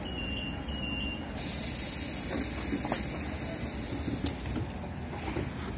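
Compressed air hissing from a standing EN57AKM electric multiple unit's pneumatic system, starting about a second and a half in and stopping after about three seconds, over a steady low rumble.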